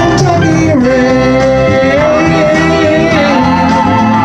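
Music: the instrumental outro of a country backing track, with long, slightly bending melody notes held over steady accompaniment.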